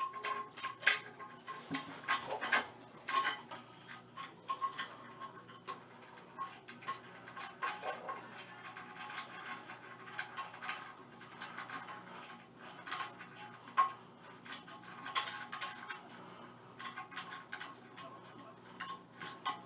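Irregular clinks, taps and light scrapes of small metal hardware and tools being handled, with a few sharper knocks.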